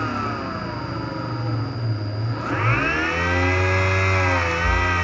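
Small homemade outrunner brushless DC motor spinning on its DIY controller, giving a whine that falls in pitch as it slows over the first two seconds. About halfway through it speeds up sharply and holds a high whine. A steady low hum runs underneath.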